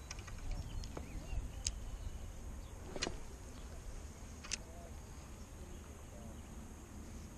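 A few sharp clicks from a spinning rod and reel being handled, over a low steady rumble.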